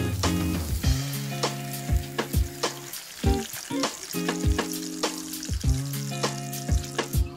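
Lumpia spring rolls frying in hot oil in a pan, a steady sizzle, under background music with a steady beat.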